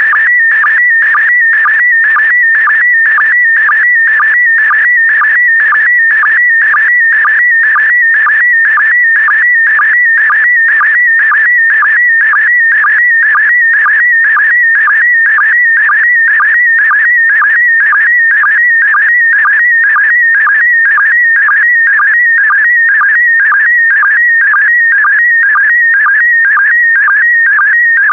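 Slow-scan television (SSTV) signal in PD120 mode: a loud, warbling electronic tone around 2 kHz, repeating about twice a second as the picture is sent scan line by scan line.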